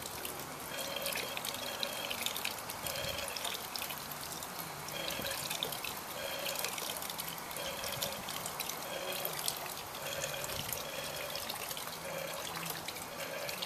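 Water from a small fountain pump trickling and splashing out of a clear plastic hose into a plastic-lined reservoir. A faint pitched sound comes and goes about every second and a half over the steady water.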